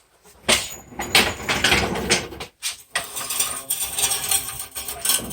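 Heavy metal parts clanking and scraping as the rear subframe of a Mitsubishi 3000GT is pushed and shifted, with repeated knocks and a short pause about two and a half seconds in.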